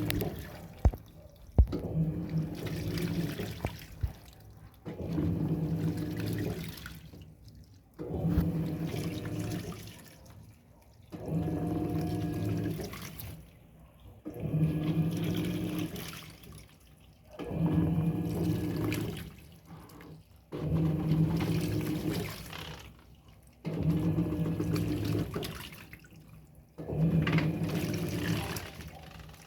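Electrolux Turbo Economia top-loading washing machine agitating a load in water: the motor runs in regular strokes of about two seconds, one roughly every three seconds, each with a low hum and water sloshing, with short pauses between.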